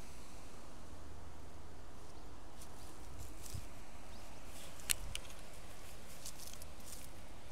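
Steady outdoor hiss with a low rumble. From about two and a half seconds in comes a run of short, dry crackles and rustles, with one sharp click about five seconds in that is the loudest sound.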